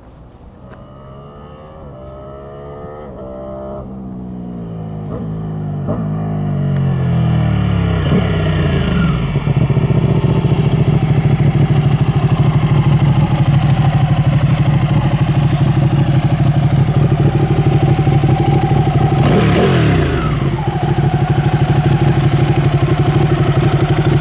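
Ducati 959 Panigale's Superquadro V-twin approaching and slowing, its engine note dropping in steps as it comes off the throttle and changes down, then idling loud and lumpy close by. A little after two-thirds of the way through, a brief rev falls back to idle.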